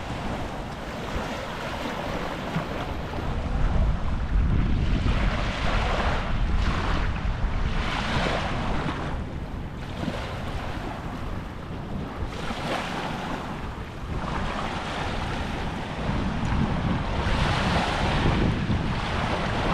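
Small Gulf waves lapping and washing up over shell-strewn sand, each wash swelling and fading every few seconds. Wind buffets the microphone throughout.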